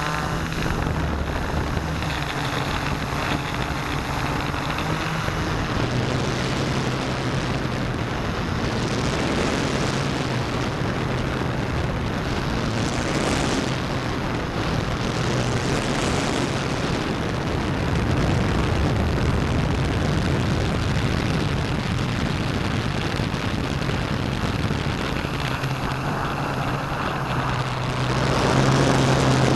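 Hexacopter's electric motors and propellers droning in flight, heard through a keychain camera riding on the craft: a steady low hum over a hiss of rushing air. The hum's pitch steps up and down a little as the motors change speed, and it grows louder near the end.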